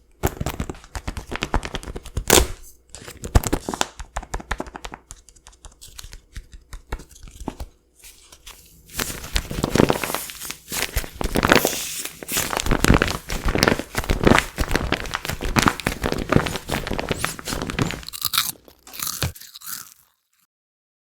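Crisp potato chips crunching as they are bitten and chewed, in dense crackly runs with a short lull about eight seconds in, ending about nineteen seconds in.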